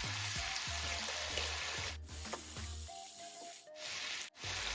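Chicken breasts sizzling in hot oil in a frying pan, over background music. About two seconds in, the sizzle thins out for a little under two seconds, then comes back.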